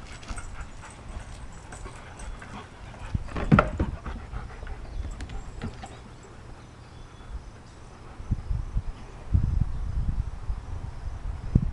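German shepherd dogs panting and moving about during play, with one short loud sound about three and a half seconds in. Near the end the panting comes in quick pulses close by.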